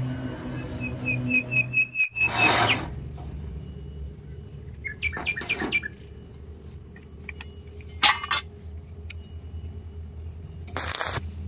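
A bird chirping: a quick run of about seven high notes about a second in, and another short run of chirps around five seconds in, over a low steady hum. A few short, loud bursts of hiss break in, around two and a half, eight and eleven seconds.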